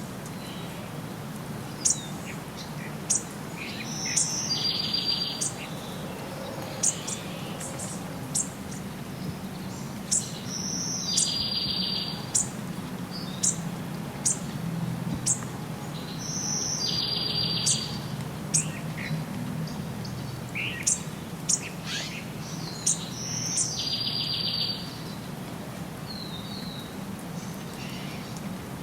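Several birds chirping and singing, with many short, high chirps. One song phrase comes back about every six seconds: a high note followed by a buzzy trill. A steady low hum runs underneath.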